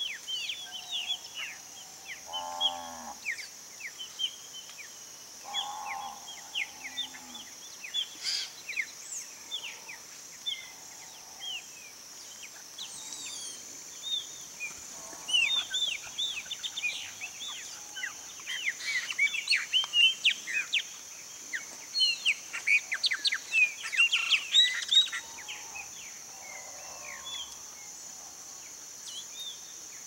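Songbirds calling at a feeding table, chopi blackbirds among them, in many short sweeping chirps and whistles that are busiest from about halfway through until near the end. A steady high insect drone runs beneath them, and a few short, lower calls come in early on and again near the end.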